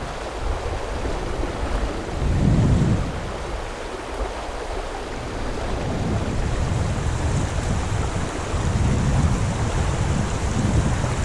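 Strong gusty wind buffeting the microphone, a low rumble that swells about two and a half seconds in and again from about eight seconds on, over the steady rush of creek water.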